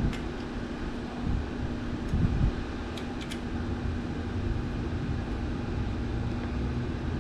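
A steady low machine hum, with a few faint clicks of a hand tool working a bolt.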